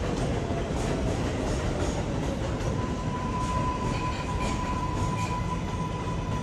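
New York City Subway train of R188 cars running past on the elevated tracks: a steady rumble with wheels clicking over the rail joints. A steady high whine joins about three seconds in.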